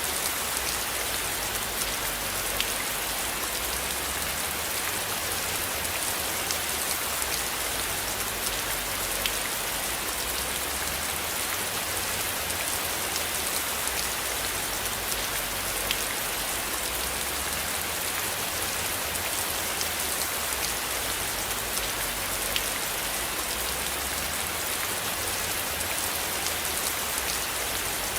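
Steady rain falling on a surface, an even hiss with scattered individual drops ticking through it and a low rumble underneath.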